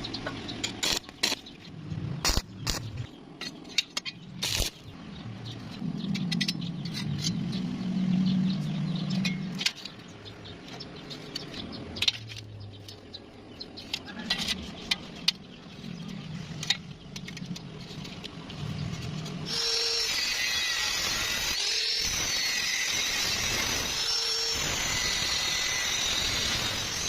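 Scattered knocks and clanks over a low, on-and-off engine hum, then about 19 seconds in a power tool starts and runs steadily.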